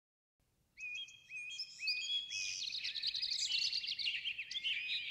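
Several songbirds chirping and singing, starting about a second in and thickening into a busy chorus of short, repeated notes.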